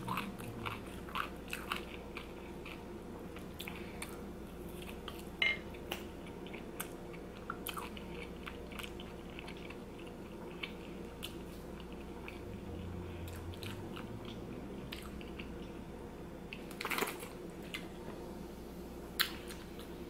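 Close-up chewing of a mouthful of poutine, gravy-soaked crispy fries: scattered soft wet mouth clicks and smacks, with a couple of louder ones near the end.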